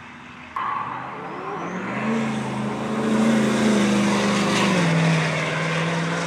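Pickup trucks drag racing, engines running hard at full throttle; the loud engine note holds steady, then steps down in pitch about five seconds in as a truck goes past.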